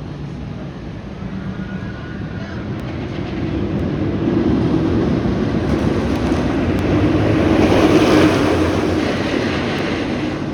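Rocky Mountain Construction hybrid roller coaster train (Wildcat's Revenge) running an empty test cycle, its wheels running along the steel track, growing louder to a peak about eight seconds in as it passes, then fading.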